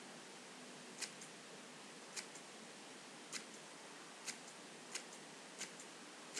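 Scissors snipping through a strip of paper packaging: six crisp cuts about a second apart, coming quicker toward the end, each followed by a fainter click.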